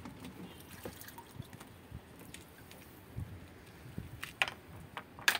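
Water sloshing and dripping as a hand moves through a plastic tub of dirty turtle water, with scattered light knocks and a sharp click just before the end, the loudest sound.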